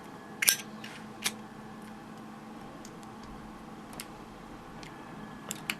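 Zippo lighter clicking as it is flicked open and shut: a few sharp metallic clicks, the loudest about half a second in, another about a second later, and two quick ones near the end. The lighter is a stiff one.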